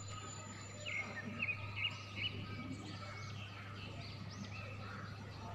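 Faint room background with a steady low hum and a few short bird chirps between about one and two and a half seconds in.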